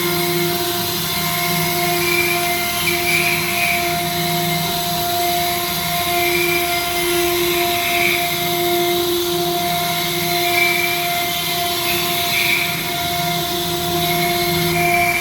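CNC router carving stone: a steady motor and spindle whine, with a higher rasping hiss that swells and fades every couple of seconds as the cutter works.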